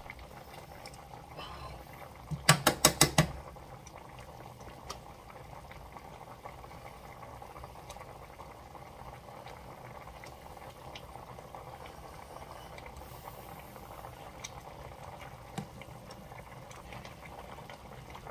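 Liquid bubbling at a steady boil in a steel pan of beef short ribs. About two and a half seconds in comes a quick run of about six sharp clicks.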